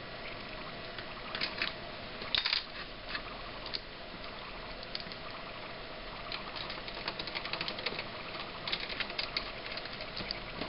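Light clicks and short scratchy scrapes from hand work on a plastic laptop case, turning into quick runs of rapid ticks in the second half, over a steady faint hum.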